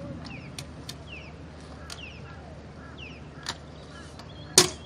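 Small birds chirping repeatedly in short, falling notes, often in pairs, over a low steady background. Scattered sharp clicks come through, with one loud knock near the end.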